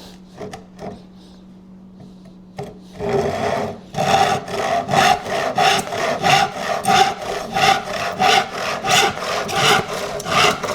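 Handsaw cutting through a wooden stake: after a few light knocks, the sawing starts about three seconds in and goes on in quick, even back-and-forth strokes, about two a second.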